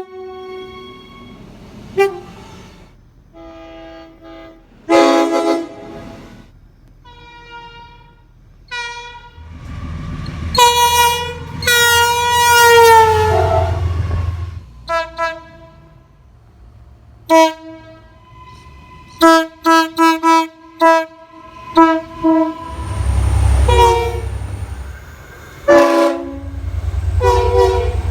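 Train horns sounding many times in turn, each blast a chord of several tones. There are short blasts and one long blast that drops in pitch near its end, then a quick string of short toots about two-thirds of the way through. Low train rumble runs under the later blasts.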